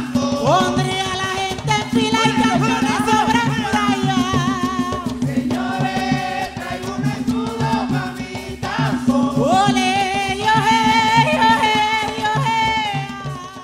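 Live bullerengue song: a woman's lead voice and a chorus of women singing over hand drums keeping a steady low beat. The music fades out near the end.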